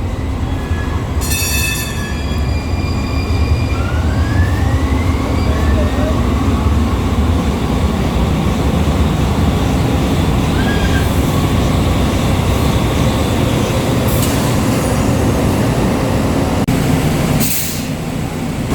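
Breda LRV3 light rail car riding, heard from on board: a steady rumble of the car and its wheels on the rails, with a brief cluster of high tones about a second in and a rising whine a few seconds in.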